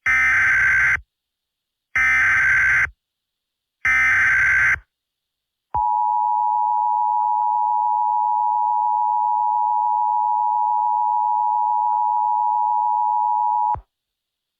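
Three roughly one-second bursts of Emergency Alert System digital data tones, a harsh two-tone warble about a second apart, the code that closes an alert message, followed by a single steady beep held for about eight seconds that cuts off sharply.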